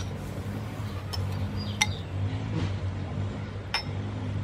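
Metal spoon clinking against a ceramic bowl a few times as sugar is scraped out into a pot, over a steady low hum.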